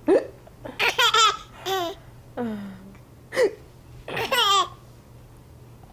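A woman hiccups twice, and after each hiccup a baby bursts into repeated laughter.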